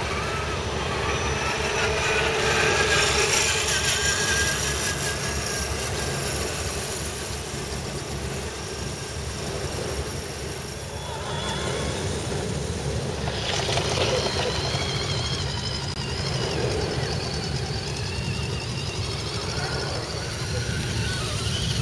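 Electric scale RC crawler trucks driving over grass, their motors and gears whining in wavering pitches over a steady low rumble, with distant voices.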